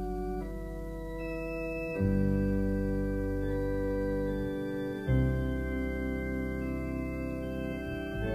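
Slow organ intro to a pop-soul song: held chords change every few seconds, and deep bass notes come in about two seconds in and again about five seconds in. There are no vocals yet.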